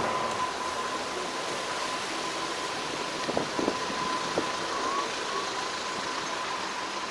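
Steady mechanical running noise with a constant thin tone through it, and a few light clicks a little past the middle.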